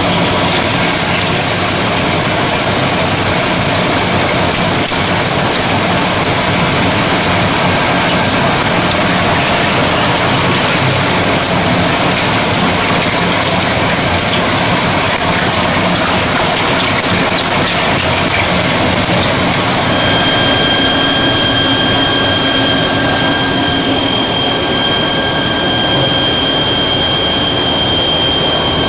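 eep ZSH 30 cylinder screw chipper running loudly, its screw drawing in sawmill offcut boards and chipping them into coarse chips, with a continuous dense machine noise. About two-thirds of the way through, a steady high whine joins in.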